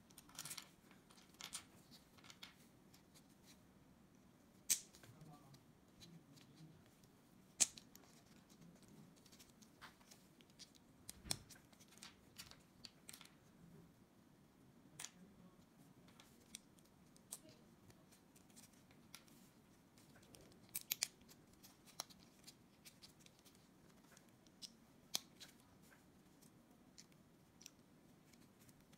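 Small plastic building-block pieces clicking and snapping together as they are pressed into place by hand: faint, scattered clicks with a few sharper snaps and a quick cluster of them past the middle.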